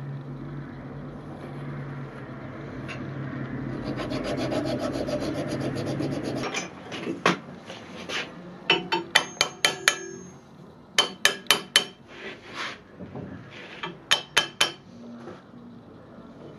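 Hand file rasping in quick strokes against a steel sword crossguard. After about six and a half seconds this gives way to clusters of sharp, ringing metallic taps on the crossguard of a sword blade clamped upright in a vise.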